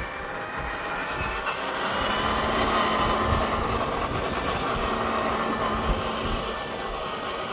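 Scale RC truck driving off-road: the electric motor and gearbox whine, swelling and easing slightly, over a steady rushing noise from the drivetrain and terrain.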